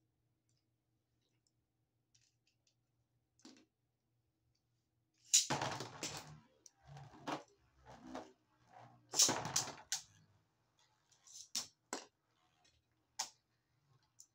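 Two Beyblade tops launched one after the other into a plastic stadium with a string launcher, about five and nine seconds in: each launch is a sudden zip and clatter as the top hits the dish and spins. Near the end come a few sharp clicks as the spinning tops strike each other.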